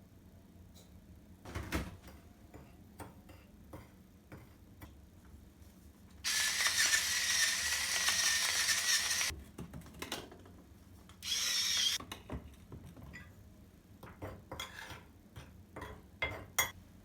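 Kitchen work: scattered light clicks and knocks of utensils and dishes being handled. About six seconds in comes a loud, steady rushing sound lasting about three seconds, and a shorter one a couple of seconds later.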